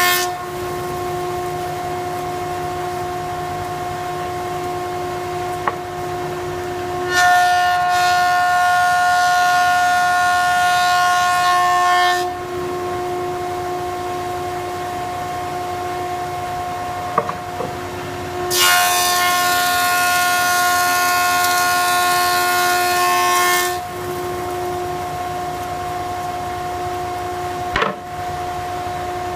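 Thickness planer running with a steady whine. Twice, about 7 and 18 seconds in, it gets louder with a harsh hiss for about five seconds: the cutterhead taking a pass through a board.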